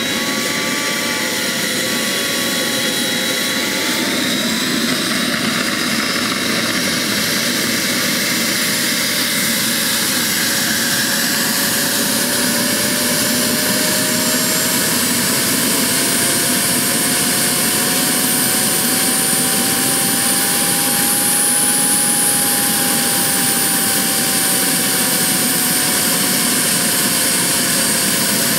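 Small model jet turbine running steadily with a high whine, its pitch slowly rising and then easing back.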